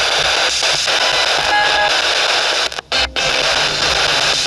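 A radio scanning through stations as a ghost box, giving a loud, steady static hiss with faint snatches of tone. It cuts out twice briefly about three seconds in.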